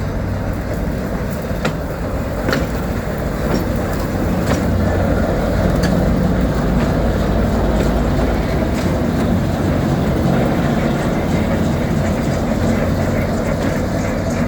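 ChME3 diesel-electric shunting locomotive running, its diesel engine droning steadily and growing a little louder about four seconds in. A few sharp clicks sound in the first five seconds.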